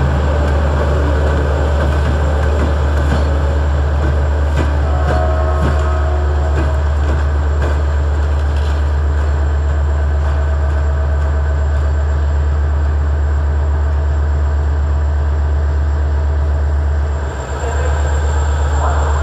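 Train locomotive running close by with a steady, deep drone.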